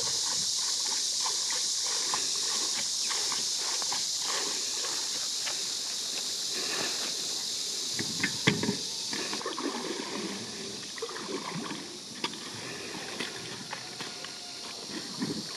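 Water splashing and sloshing around a truck inner-tube boat as it is paddled ashore, with sharp knocks of the wooden paddle and rubber tube being handled, loudest about eight seconds in. A steady high hiss runs underneath.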